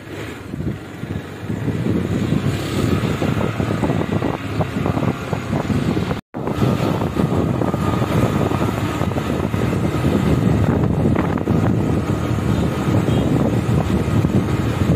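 Wind buffeting the microphone over the engine and road noise of a moving two-wheeler, heard from the pillion seat. The rumble builds over the first couple of seconds, cuts out for a moment about six seconds in, then runs on steadily.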